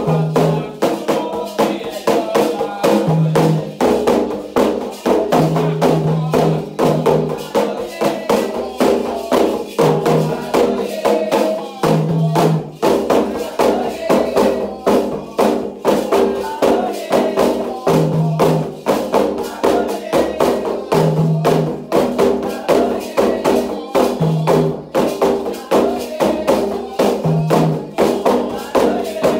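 Candomblé ritual music: hand drums and a struck percussion part keeping a fast, continuous rhythm under voices singing.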